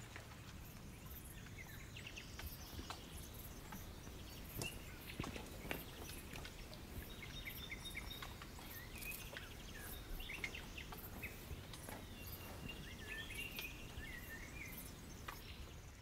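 Faint countryside nature ambience: scattered small bird chirps and irregular insect-like clicks over a low, steady background hiss.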